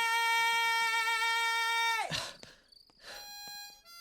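Film song music: a singer's long held note, sung with a slight vibrato, ends about halfway through. A brief swish follows, then a new instrumental phrase of separate, sharply struck notes begins.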